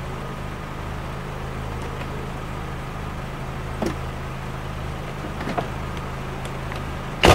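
Car engine idling steadily, a low even hum, with a couple of faint clicks and one sharp knock near the end. The subwoofers are not playing.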